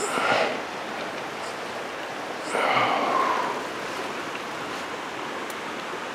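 Steady rush of a small mountain creek's running water, with two brief louder sounds, one at the start and one about two and a half seconds in.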